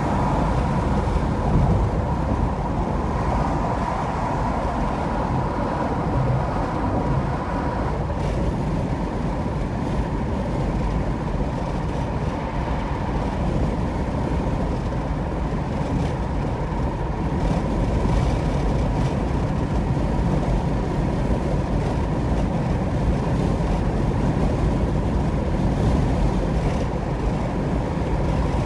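Steady road noise of a car driving at highway speed: a continuous low tyre and engine rumble. A faint steady whine rides on it and fades about eight seconds in.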